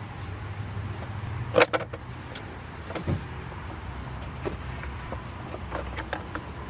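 Sharp clicks and clanks of engine parts and tools being handled, loudest in a quick cluster about one and a half seconds in, with a thud near three seconds and lighter clicks later, over a steady low hum.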